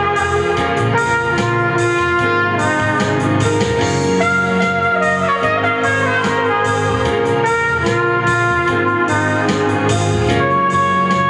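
Music: a trumpet playing a pop song's melody in long held notes over a backing track of keyboards and guitar.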